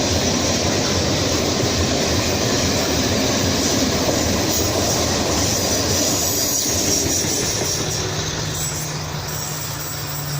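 Heavy freight train's wagons rolling past on the rails with a steady clickety-clack, a high wheel squeal in the middle, and the sound fading a little near the end.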